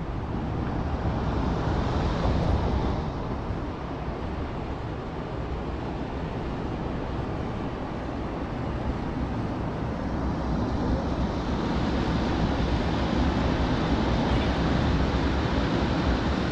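Rushing road-traffic noise, swelling about two seconds in and building again from about eleven seconds on as vehicles pass.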